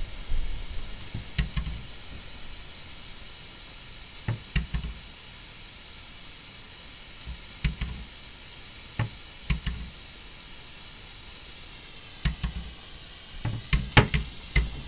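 Scattered knocks and thuds inside a house over a steady high hiss, a few at a time through the middle and a quicker run of them near the end.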